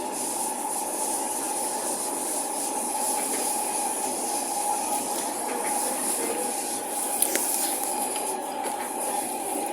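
Singapore MRT train running between stations, heard inside the carriage: a steady rushing noise with a steady mid-pitched whine, and a single click about seven seconds in.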